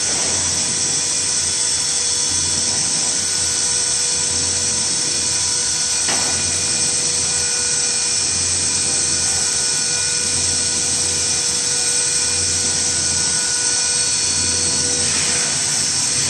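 Vacuum emulsifying mixer's lid-lift drive running with a steady mechanical whine and hiss as the lid and its scraper agitator rise out of the tank.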